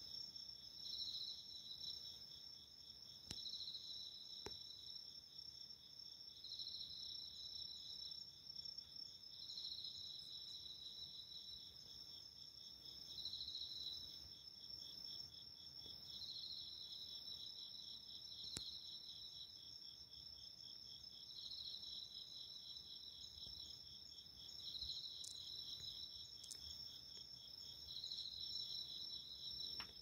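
Faint chorus of autumn night insects. Continuous high trilling runs throughout, and another insect's song comes in short repeated phrases every few seconds.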